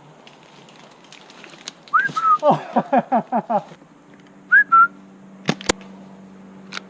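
Someone whistling: a rising note, then a quick run of falling sliding notes, and another short whistled note later. A few sharp clicks come near the end.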